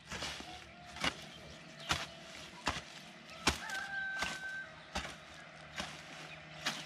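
A hoe chopping into weedy soil, about eight dull strikes evenly paced under a second apart, as spring grass is scraped off a field.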